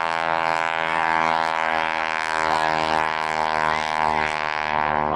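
Boeing-Stearman PT-17 biplane's radial engine running steadily in flight, a continuous drone.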